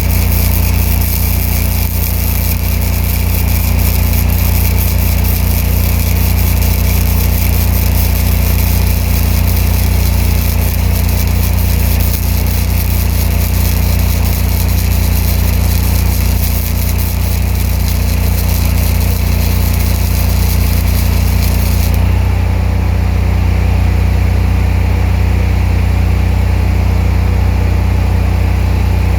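Engine-driven welder running steadily under load, with the hissing crackle of an open-arc flux-core weld from a spool gun. About three-quarters of the way through the arc cuts off and the engine carries on alone, its note shifting slightly as the welding load drops.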